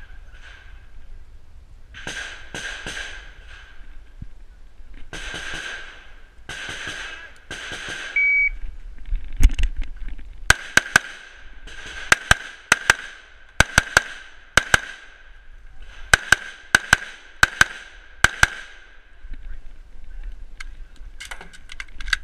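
A shot timer beeps once, and about two seconds later a semi-automatic rifle fires rapidly, mostly in quick pairs, many shots over about eight seconds, with a few more near the end.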